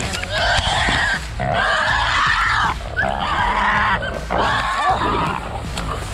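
A hog squealing in four long, harsh squeals of about a second each, with short gaps between them.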